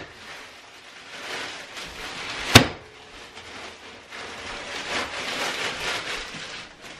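Rustling and crinkling of a plastic bag of frozen mixed vegetables being handled, with one sharp click about two and a half seconds in.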